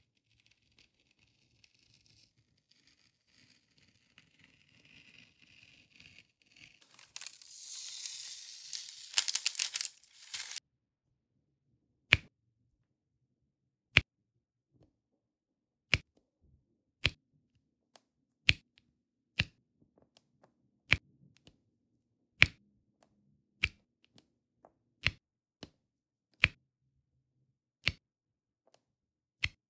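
A craft knife scratches along the clear plastic cover film of a diamond-painting canvas. The film then tears with a louder rasp for about three seconds. After that come sharp single clicks, about one every second and a half, as a drill pen presses round resin drills onto the sticky canvas.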